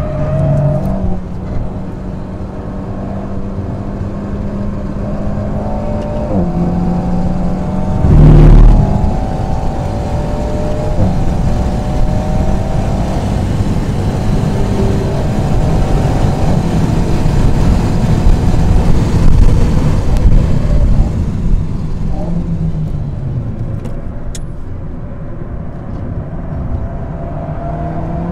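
Alpine A110's turbocharged 1.8-litre four-cylinder engine running hard at high revs, heard from inside the cabin, with its pitch stepping at gear changes: up as far as fifth gear, then back down to third near the end. A loud thump comes about eight seconds in.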